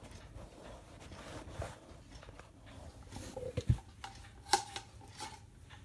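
Light handling noise: scattered clicks and knocks as objects are moved about, with a low thump a little past halfway and a sharp click soon after.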